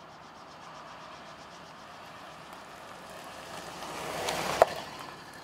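Small helicopter running on the ground with its rotor turning slowly, a steady engine and rotor noise at a distance. About four and a half seconds in, a swell of noise ends in a single sharp knock.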